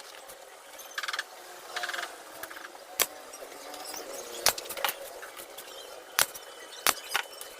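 Hand work with small tools and hardware on wood: two short rattling bursts about one and two seconds in, then a series of separate sharp clicks and knocks.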